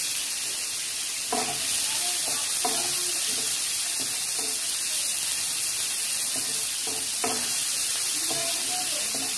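Sliced onions sizzling in hot oil in a non-stick kadai, stirred with a wooden spatula that scrapes and knocks against the pan every so often. The frying hiss is steady.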